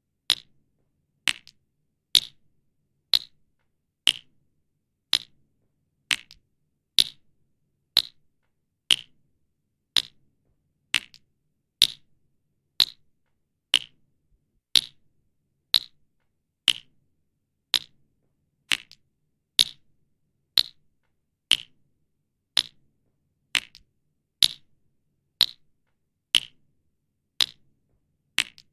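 Single water drops falling one at a time at a steady rate of about one a second, each a short sharp plink, as in water-torture dripping.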